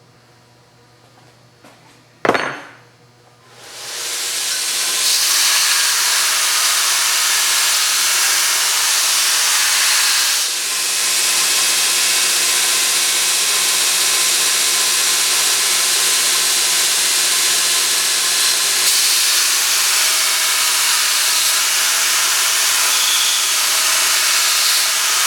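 A sharp click about two seconds in, then a homemade 2-inch belt grinder driven by a 2 hp motor spins up over a second or so and runs steadily with a loud hiss.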